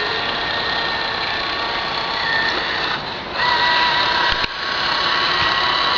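Radio-controlled amphibious toy truck's motor whining steadily at speed. It eases off briefly about three seconds in, then picks up again, with a short click about a second later.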